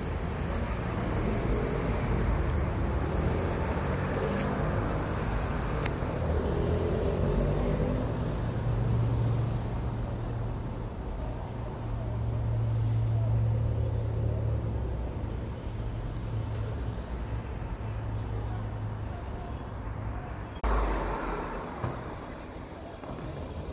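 City street traffic noise: a steady low rumble of passing and idling vehicles with a deep engine hum that swells and fades, changing abruptly near the end.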